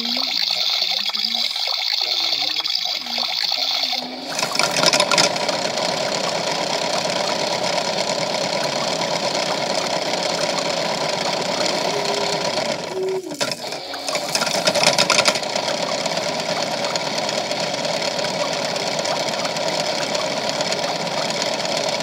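Toy washing machine's small motor spinning its drum, with a rock and plastic beads tumbling and rattling inside. It makes a steady whirring rattle that grows fuller about four seconds in as the drum spins up, and drops briefly in the middle with two short tones before it resumes.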